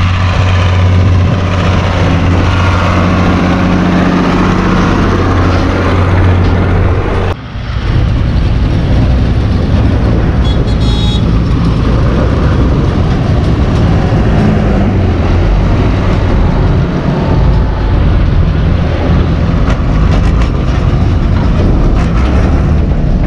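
Diesel tractors drawing silage trailers up a gravel lane, engines running steadily: first a red Fiat, then, after a sudden break about seven seconds in, a John Deere 6140M and another Fiat, with a denser rumble as they come close.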